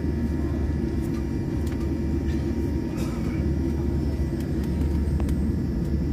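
Steady low rumble of a jet airliner's cabin on the ground, the engines and air conditioning running, with a few faint clicks.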